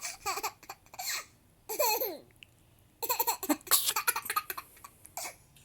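A young girl laughing hard at a sneeze, in several high-pitched fits with short pauses between them.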